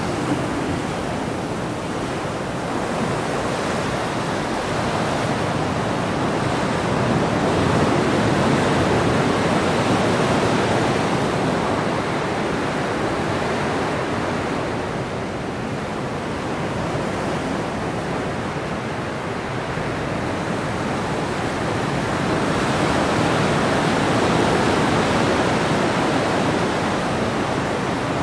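Ocean surf washing in and out among the pier pilings, a continuous rush of water. It swells louder twice, about a third of the way in and again near the end.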